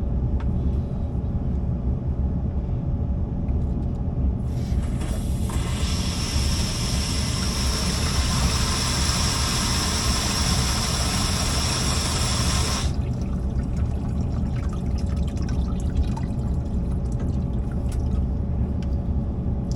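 Water being forced through a unit's water lines during a back-flush: a loud, even rushing hiss with a high whistling edge that lasts about eight seconds and then cuts off suddenly. A steady low rumble runs underneath.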